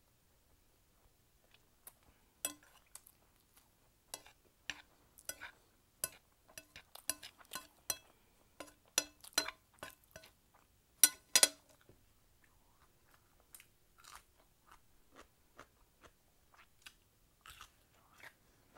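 Close-miked mouth sounds of chewing a big mouthful of Indomie Mi Goreng fried instant noodles: wet smacks and clicks of lips and tongue, coming thickest and loudest around eleven seconds in, then fainter and sparser.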